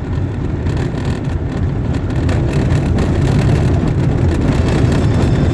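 Motor vehicle on the move: a steady low rumble of engine and road noise, growing a little louder about two seconds in.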